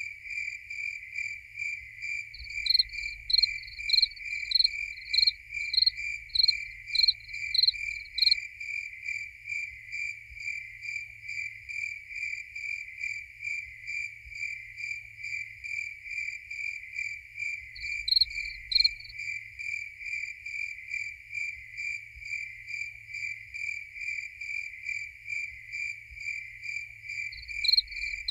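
Crickets chirping. One cricket keeps up a steady, rapid chirp throughout. A second, higher-pitched and louder one chirps about twice a second in three spells, the longest lasting about six seconds.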